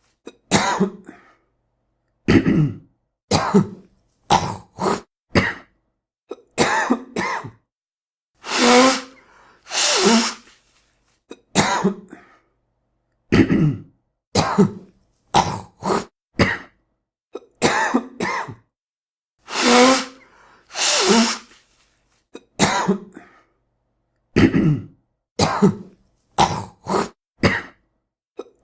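A man coughing and clearing his throat again and again in short separate bursts, with now and then a longer, louder nose blow.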